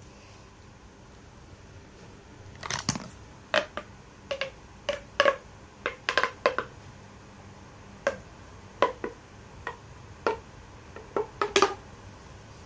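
A blue plastic toy tapping and knocking in a series of short, sharp clicks, about fifteen at irregular intervals, some coming in quick pairs.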